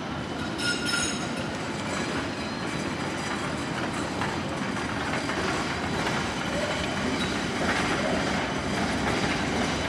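Articulated tram rolling through a street junction on its rails, with a steady running rumble and a brief high metallic wheel squeal about a second in.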